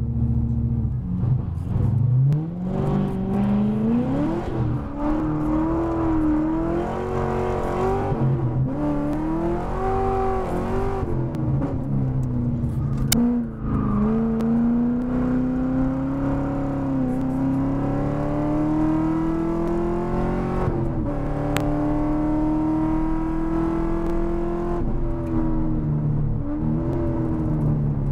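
Corvette C6 Z06's 7.0-litre V8, heard from the cabin, pulling hard from a standstill up through the gears. Its pitch climbs and drops back several times as it shifts and eases off for corners.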